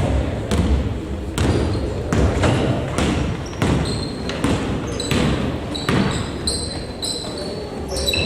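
Basketball game on an indoor court: the ball bouncing on the floor over and over, with sneakers squeaking on the court from about halfway on.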